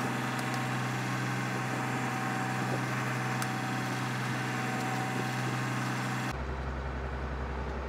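Fishing boat's diesel engine running steadily, a low hum with a constant drone. About six seconds in the hum shifts abruptly deeper.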